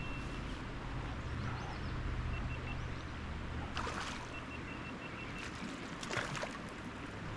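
Small mountain creek flowing, a steady rush of water over a low rumble, with a few short sharp sounds about four and six seconds in.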